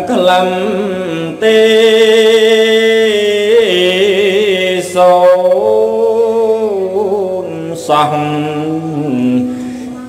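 A Buddhist monk's voice chanting Khmer smot, a Buddhist verse recitation, in several long phrases of held notes with wavering, ornamented pitch, broken by short pauses.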